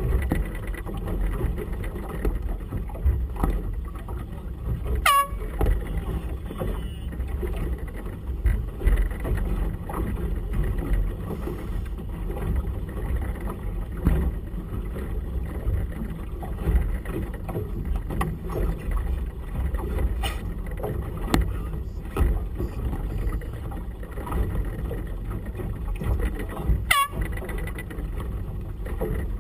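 Steady rumble of gusty wind and choppy water on a small open boat, with wind buffeting the microphone. Two brief high-pitched sounds fall sharply in pitch, one about five seconds in and one near the end.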